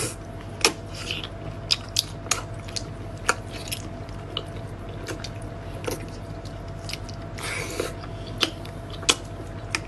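A person eating close to the microphone: biting and chewing, with irregular sharp crunching clicks over a steady low hum.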